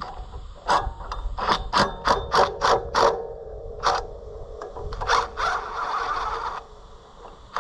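DeWalt cordless impact driver working a stubborn nut off a bolt on an Oliver 356 mower's pitman arm, hammering in a series of short bursts for the first few seconds, then one longer run of about a second near the end.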